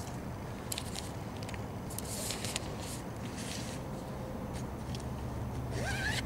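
Steady low rumble of wind on the microphone, with a few brief rustles and ticks from movement in the grass. A short rising chirp comes near the end.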